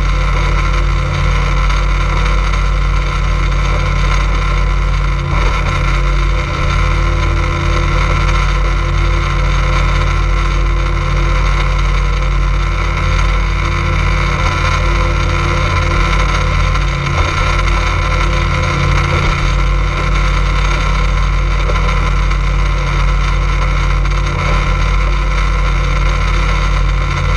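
Motorboat engine running steadily under way: a constant loud drone with steady tones, mixed with the rush of water along the hull.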